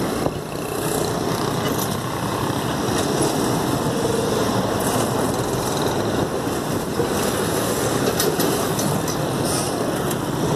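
Diesel locomotive engine running steadily as the locomotive moves slowly along the track.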